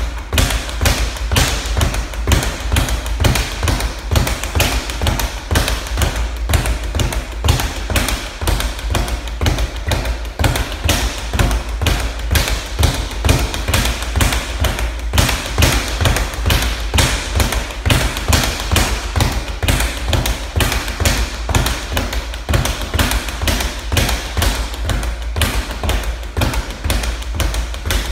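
Speed bag being punched continuously, rattling against its wall-mounted rebound platform in a fast, steady stream of knocks.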